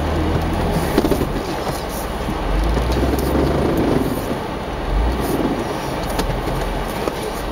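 Jeep Wrangler JK Unlimited running and creeping slowly through deep snow, its engine a low steady drone with a few knocks and clicks.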